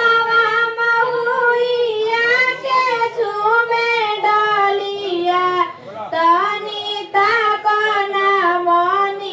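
A high voice singing a slow, unaccompanied melody in long held notes that waver in pitch, with short breaths between phrases.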